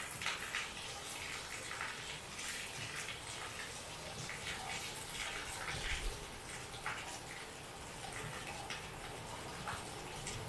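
Heavy rain falling: a steady hiss with irregular drips and splashes on top.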